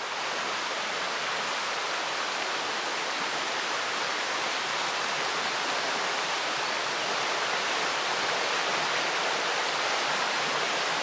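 Small woodland brook flowing: a steady, even rush of running water.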